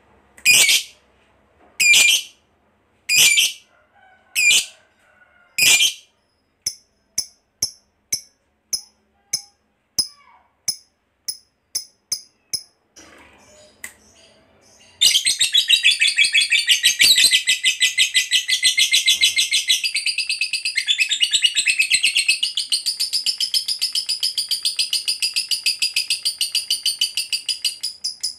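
Lovebird calling: sharp, high chirps about once a second, then softer, quicker chirps that fade away. About halfway through it breaks suddenly into a long, rapid, continuous chattering trill, the 'ngekek panjang' that lovebird keepers prize in a fighter bird.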